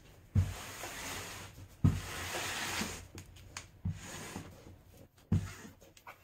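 Cardboard shipping box being handled and moved about: four dull thumps, with cardboard scraping and rubbing after each, the longest stretch of scraping about two seconds in.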